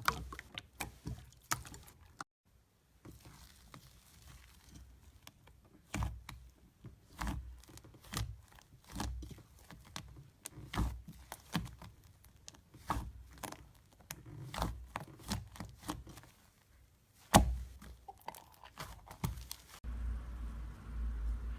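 Slime being squeezed and pressed by hand, giving irregular crackles, pops and squishes in small clusters, with one louder snap late on. Near the end a steady low hum comes in.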